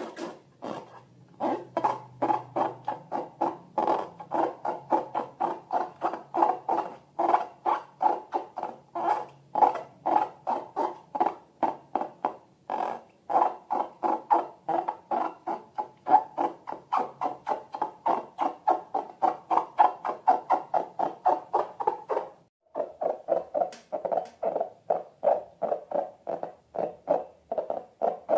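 Slime being squeezed and worked by hand, giving a steady run of wet, clicky squelches about three a second. The squelches stop briefly about 22 seconds in, then carry on a little lower in pitch.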